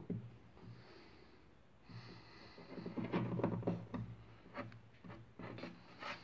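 Rustling handling noise and a few light knocks and clicks of a hand working among wood shavings on a piano bridge and soundboard, loudest a few seconds in.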